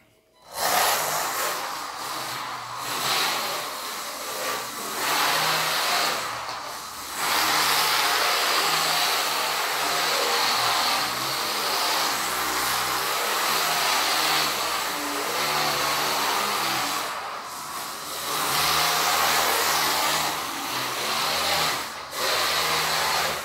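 WLtoys 284131 1/28-scale RC drift car driving and sliding on a laminate wood floor: its small electric motor whirring and its hard drift tyres hissing over the boards. The sound is steady, with brief dips several times as the throttle is let off.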